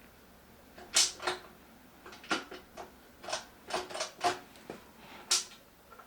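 Irregular sharp clicks and light knocks, about a dozen of them, the loudest about a second in and again near the end.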